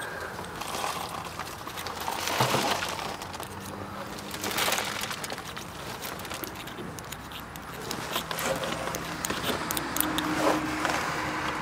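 Rustling and scraping of an old sheepskin seat cover being pulled and handled, with rat-nest debris underneath, coming in uneven bursts. The two clearest bursts come about two and a half and four and a half seconds in.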